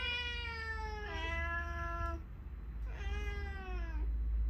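House cats meowing: two long meows back to back in the first two seconds, then another, falling in pitch, about three seconds in, with a steady low hum underneath.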